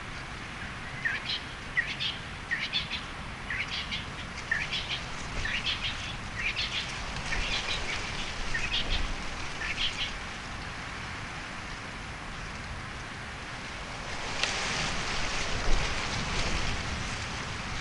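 A bird calling repeatedly: about ten short, rising notes, roughly one a second, which stop about ten seconds in. Behind them is a steady hiss that grows louder near the end.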